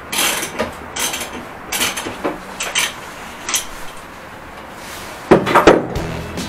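Metal hand tools clinking and knocking while working at a motorcycle's rear wheel: a string of short clinks about once a second, then a louder clatter about five seconds in.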